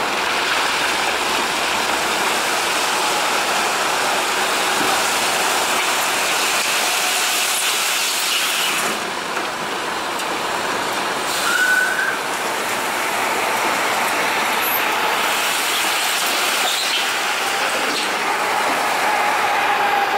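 Mercedes-Benz Arocs truck unloading a tipper semitrailer: the engine drives the hydraulic tipping ram as the body rises, and quarry stone slides and pours out of the tail. A steady, noisy rush with a brief louder swell about twelve seconds in.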